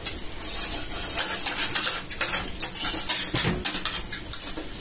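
Eating sounds during a race to finish egg rolls: rapid, irregular crisp clicks and clatter of plates and utensils.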